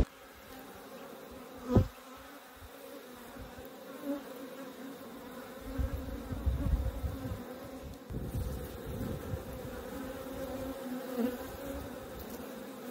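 Steady buzzing hum of many honeybees swarming over exposed burr comb on an opened hive, a calm colony rather than an agitated one, with a single dull bump about two seconds in.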